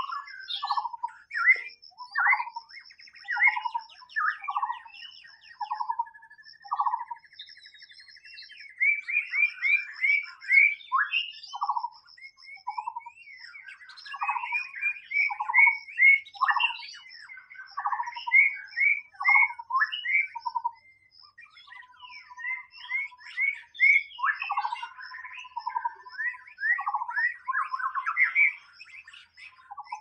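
White-rumped shama singing: phrase after phrase of clear whistled notes mixed with quick trills and a buzzy passage, with short pauses between phrases. A faint, steady, high pulsing trill runs underneath.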